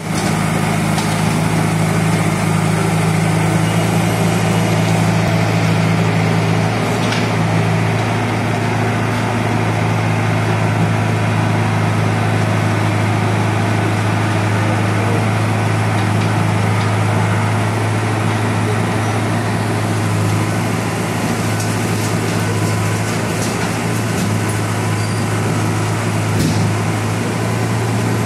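Backhoe loader's diesel engine running steadily at close range while it works brick rubble, with scattered sharp knocks of debris, more of them near the end.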